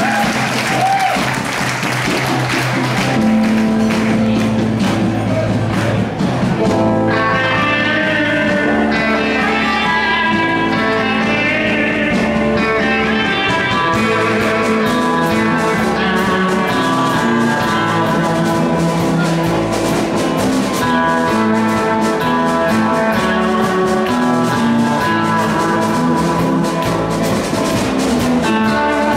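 Live rock band playing through a PA: electric lead guitar carrying the melody over bass guitar and drums. Applause fades out in the first few seconds as the bass line starts, and the lead guitar comes in about seven seconds in.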